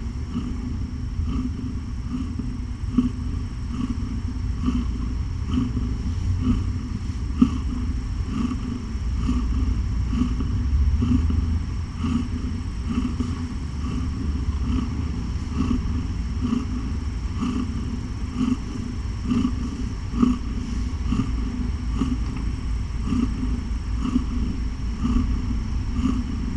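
Doppler heartbeat sound from a probe on a pregnant cat's belly: a rumbling whoosh with a regular pulsing beat, picking up a strong heartbeat.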